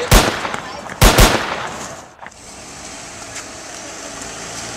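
Three gunshots: a sharp, loud bang just after the start, then two more in quick succession about a second in.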